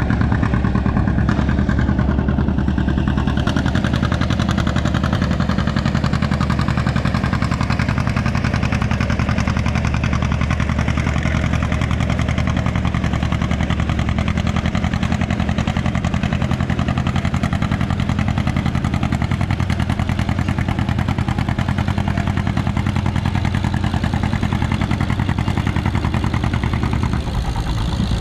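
Farmall M tractor engine running hard and steady under load, pulling a weight sled. The loud, even exhaust beat holds throughout.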